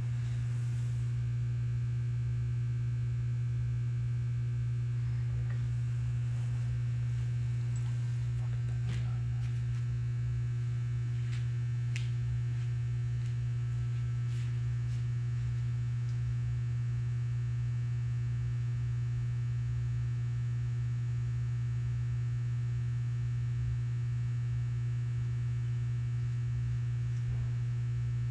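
Steady low electrical mains hum, with a few faint clicks in the middle.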